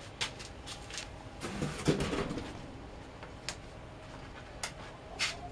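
Grape bunches rustling and shifting in the metal hopper of a grape crusher-destemmer as gloved hands sort through them and pick out leaves. There are scattered light clicks, and a louder burst of rustling and clatter about two seconds in.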